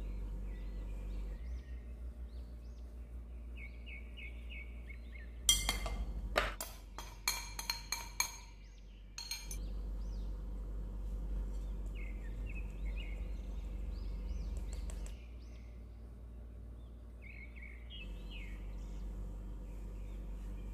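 Kitchen utensils and glass bowls clinking against a glass mixing bowl: a run of sharp clinks in quick succession from about five to nine seconds in. Under it runs a steady low hum, and small birds chirp in the background throughout.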